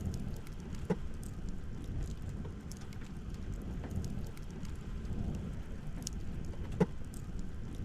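Campfire burning with a low rumble and steady crackling, with two sharp pops, one about a second in and one near the end.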